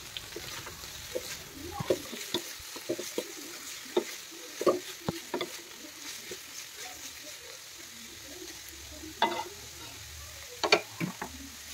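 Chicken and sliced vegetables sizzling in a wok, stirred with a wooden spatula that scrapes and knocks against the pan in irregular strokes.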